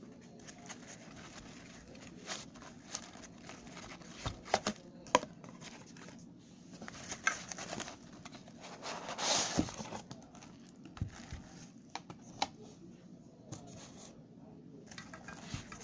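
Nylon drawstring pouch holding a portable gas stove rustling and rubbing against a cardboard box as it is lifted out by hand. Scattered light clicks and knocks run through it, with a louder burst of rustling about nine seconds in.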